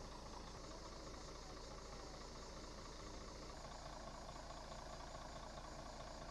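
Tour coach's engine idling, a low, steady rumble.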